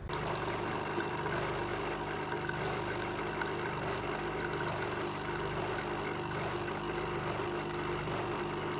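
Automatic coffee machine running steadily with a hum as coffee pours from its twin spouts into a ceramic mug.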